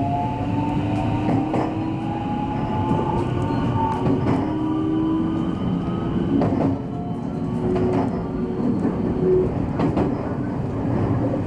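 Electric multiple-unit train accelerating, its traction motors giving a slowly rising whine over the running rumble, with irregular clicks of the wheels over rail joints.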